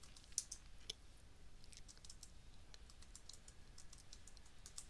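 Faint computer keyboard typing: scattered keystroke clicks, a couple of them louder about half a second and a second in, as a username and password are entered at a login prompt.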